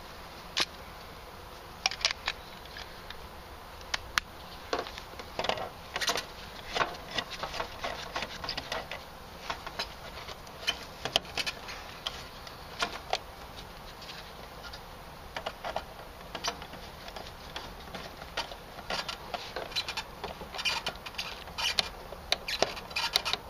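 Irregular clicks, taps and rustles of gloved hands and a screwdriver working wires and terminals inside an air-conditioner's control panel while line-voltage wires are connected.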